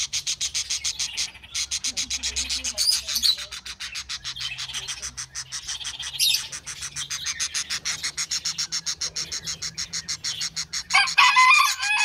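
A red-crowned parakeet (kākāriki) chattering: a rapid, even run of sharp high notes with a couple of brief breaks, then a few short rising-and-falling chirps near the end.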